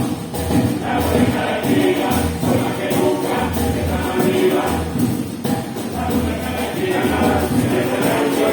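Live band music with several voices singing together over a low, pulsing bass.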